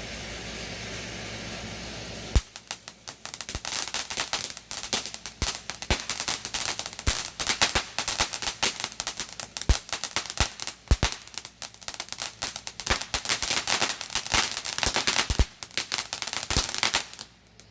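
Consumer firework going off: a steady hiss, then about two seconds in a rapid run of crackling and sharp pops with louder bangs scattered through it, lasting about fifteen seconds before it cuts off suddenly near the end.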